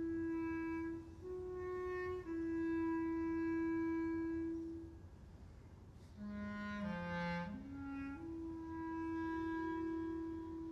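A single-reed woodwind plays long held notes, mostly on one pitch with a small step up and back. After a short pause about five seconds in, it dips to lower notes, climbs back in steps, then holds a long note again.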